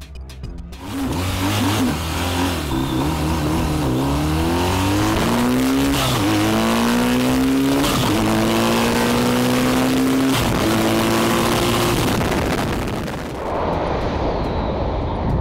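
Vehicle engine accelerating hard through the gears. Its pitch climbs and drops back at each of four upshifts, then holds steady and fades.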